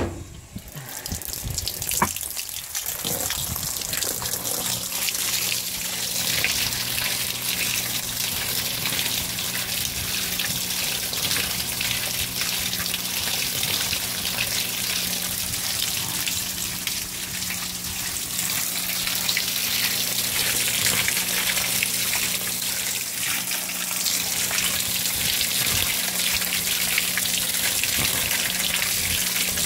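Whirlpool Cabrio top-load washer filling: water gushes from the dispenser onto the clothes as the basket turns, with a steady low hum underneath. A sharp knock comes about two seconds in.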